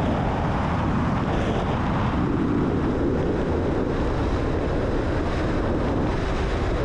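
Steady rush of wind and rumble picked up by a camera mounted on the SolarStratos solar-electric aircraft during its takeoff roll and lift-off, with no clear motor or propeller tone standing out.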